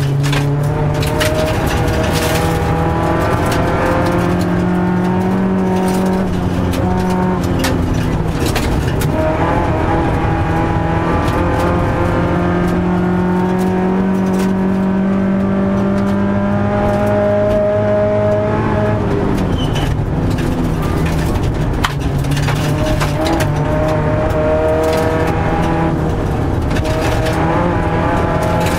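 Rally car engine at full throttle, heard from inside the cabin, its revs climbing in long pulls and dropping sharply about two-thirds of the way through. Gravel and stones clatter against the underbody over steady tyre and road noise.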